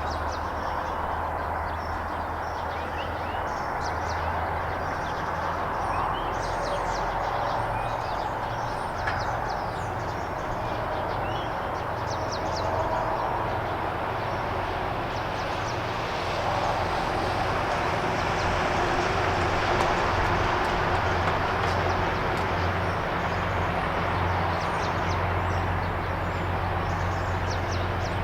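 Diesel locomotive engine running with a steady low throb, getting a little louder about two-thirds of the way in, with birds chirping over it.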